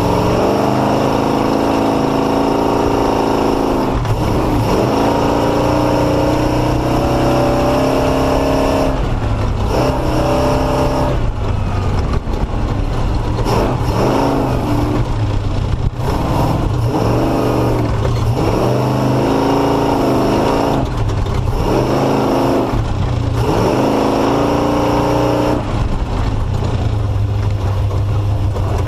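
Off-road race vehicle's engine running hard, its revs rising and falling every few seconds as the throttle goes on and off through slow, rough terrain.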